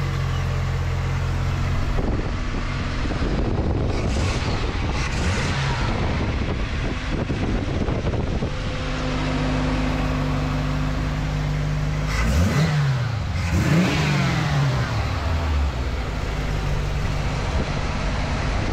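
Ford 302 V8 engine in a 1951 Ford F3 pickup, heard at the engine bay: idling steadily with several short throttle blips that rise and fall in pitch, a group of them a few seconds in and two more past the middle.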